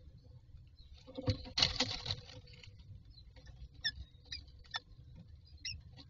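An adult common myna comes into the wooden nest box with a loud burst of scratching and rustling against the wood and nest material about a second in. Several short, high peeps follow from the birds at the nest.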